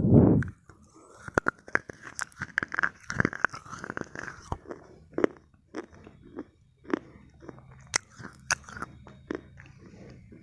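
Slate pencil being bitten and chewed close to the microphone. A loud dull thump comes at the very start, then a run of sharp crunching snaps, thick for the first few seconds and sparser after that.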